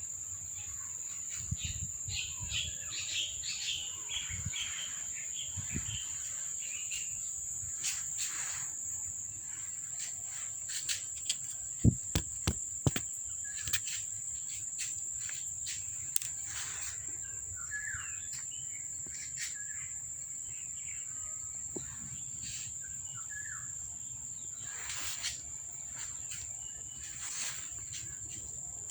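Insects, most likely crickets, making one steady high chirring note throughout, with scattered sharp clicks and taps (the loudest a quick cluster about twelve seconds in) and a few short faint chirps.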